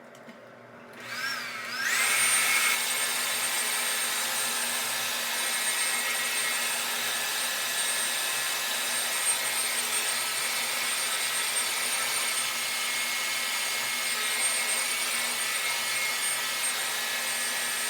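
Handheld blow dryer switched on about a second in, its whine rising as the motor spins up, then running steadily with a loud rush of air and a high whine.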